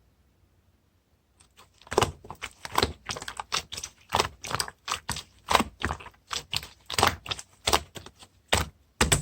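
Sharp, irregular clicking taps at about three to four a second, starting about two seconds in after a quiet start and quickening near the end.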